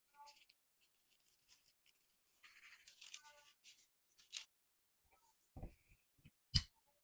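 Rustling and crinkling of plastic food gloves and wrap as dough is handled. From about five and a half seconds in, soft thuds roughly once a second as a wooden rolling pin starts working a piece of dough on a silicone mat.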